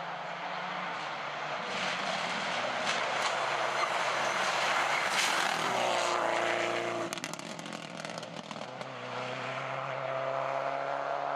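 Rally car on a gravel stage running hard, its engine note growing louder as it approaches and passes close about six seconds in. Just after, the engine drops in pitch and loudness with a rapid crackle of clicks, then picks up again with a steady note as the car pulls away.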